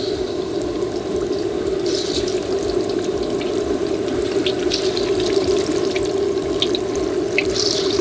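Marinated chicken pieces deep-frying in hot oil in an iron kadai: a steady bubbling sizzle with scattered crackles and pops as more pieces go into the oil.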